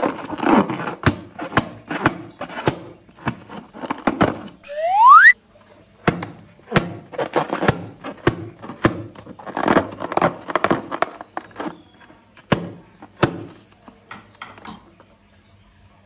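A string of short thunks and clicks. About five seconds in comes a rising whistle-like squeal, the loudest sound, which cuts off suddenly.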